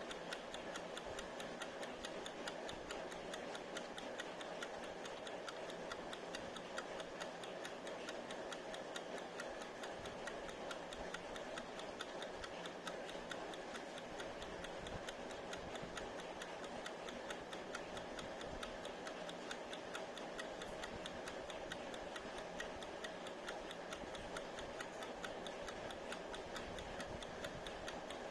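Wind-up mechanical kitchen timer ticking rapidly and evenly as its clockwork runs down.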